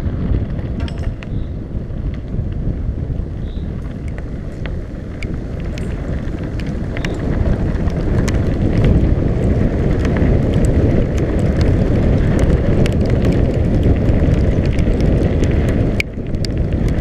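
Wind buffeting the microphone on a fast downhill bicycle ride over a dirt trail, with tyre rumble and scattered clicks and rattles from the bike and the ground. It gets louder about halfway through and drops briefly near the end.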